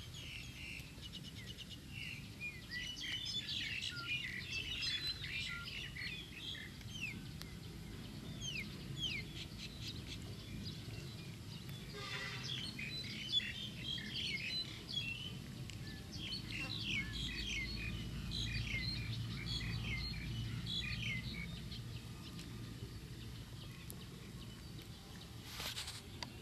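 Small birds chirping and twittering, many short quick calls overlapping, thinning out after about 21 s, over a faint low rumble.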